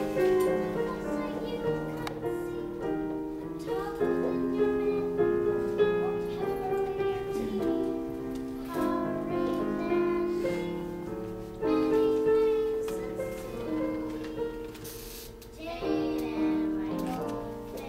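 Musical accompaniment for a stage musical: sustained chords that move to new notes every second or two.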